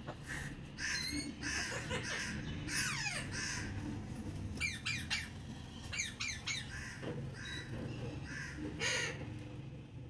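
Alexandrine parakeet giving a run of short, harsh squawks and chattering calls, with a few quick wavering whistled notes about five and six seconds in.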